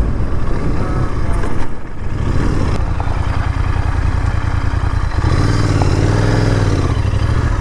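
Royal Enfield Continental GT650's parallel-twin engine running on the move. The revs dip briefly about two seconds in, then rise and fall again between about five and seven seconds in.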